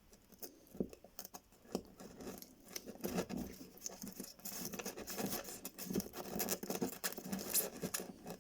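Close handling noise: irregular scratching, rustling and small clicks as soldered dropper wires on a piece of model railway track are fed down through holes in insulation board. The sounds get busier from about three seconds in.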